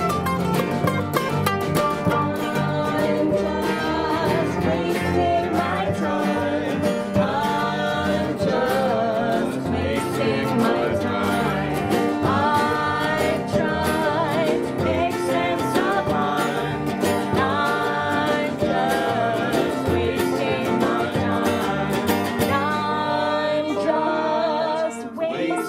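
Country-bluegrass band playing an instrumental break, with banjo, electric bass and guitar over a steady drum beat and a gliding lead line on top. Near the end the drums drop away.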